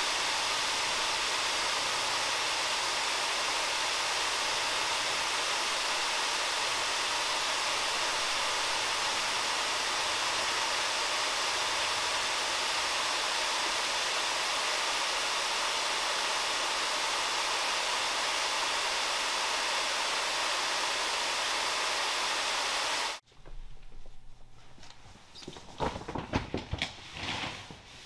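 Automated rug washing machine spraying water over a rug: a steady, even hiss that cuts off suddenly about 23 seconds in. It is followed by a few thumps and rustles as the rug is handled.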